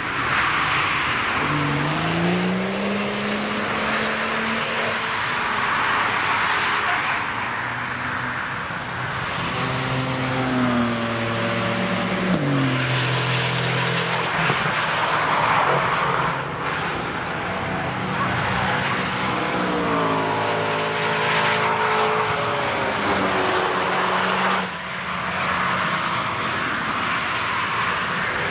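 Cars driving past on a race track one after another, with continuous engine and tyre noise. Several times an engine's pitch climbs steadily as the car accelerates out of a corner.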